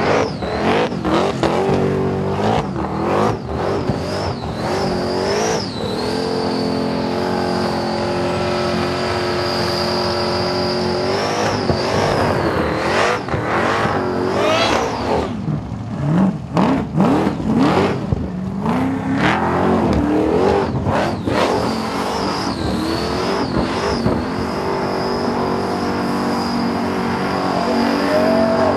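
Supercharged 350 Chevrolet V8 with a 6/71 blower and birdcatcher injection, revved hard again and again and held at high revs for several seconds. Around the middle comes a run of sharp cracks and pops between the blips, then it revs up again.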